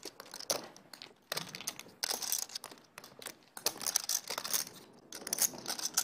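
Poker chips clicking against each other as a seated player handles his stacks at the table: short runs of rapid clicks with brief pauses between them.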